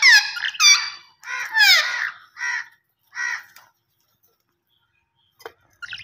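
Budgerigars calling: a quick run of about six short calls, each falling in pitch, that stops about three and a half seconds in, then two brief chips near the end.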